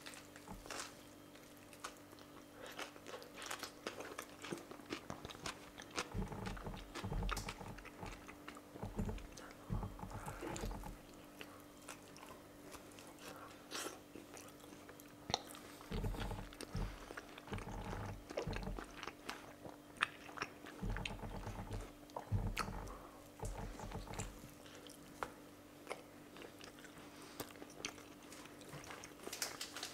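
Close-up chewing and biting into a large chicken shawarma wrap: wet mouth clicks and crunches come in irregular bursts over a faint steady hum.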